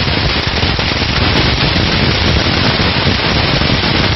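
A peacock fountain firework burning on the ground: a loud, steady hiss of spraying sparks crowded with rapid crackling.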